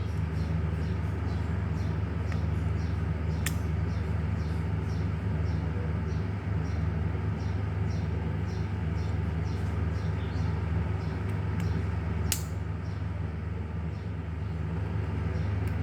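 A steady low hum with a faint, regular ticking of about three ticks a second. Two sharp clicks come about a third of the way in and again near the end.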